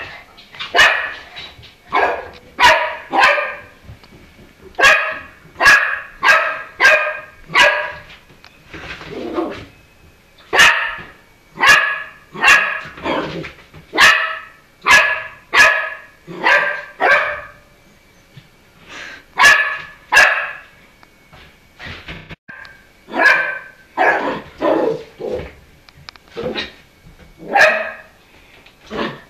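Kelpie puppy barking at its own reflection in a mirror: short, sharp, high barks in runs of several at about two a second, with brief pauses between the runs.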